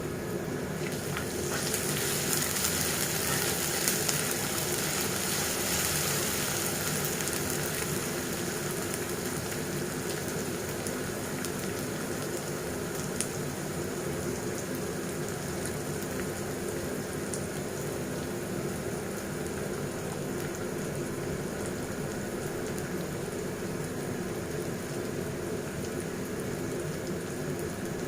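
Food frying in a pan: a steady sizzle, louder and hissier from about two to seven seconds in, then even.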